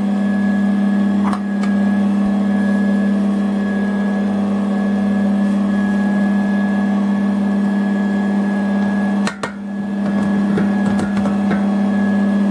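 Electric stand mixer running steadily at a high speed, its motor humming as the beater works an egg-white batter. A short knock comes with a brief dip in the hum about nine seconds in.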